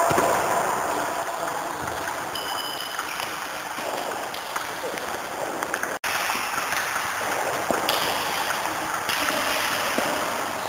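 Table tennis balls clicking off bats and the table, many quick ticks over the steady hubbub of a busy sports hall.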